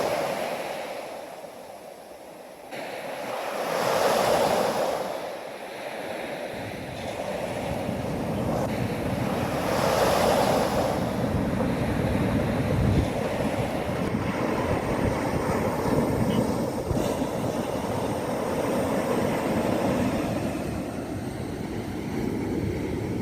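Ocean surf: waves breaking and washing in, swelling loudest about four seconds and ten seconds in, then settling into a steady rumble of surf, with wind on the microphone.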